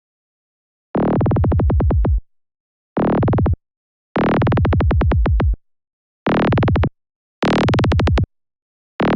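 Synthesized psytrance kick and rolling bass line pulsing about ten times a second, heard in six short bursts that start and stop abruptly with dead silence between them. Its high end is cut by a filter that reaches higher in the later bursts.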